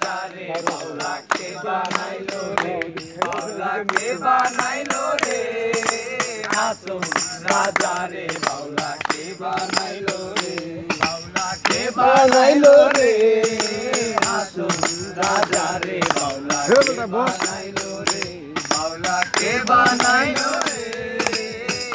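A group of men singing together to rhythmic hand clapping and a small hand-held jingling percussion instrument.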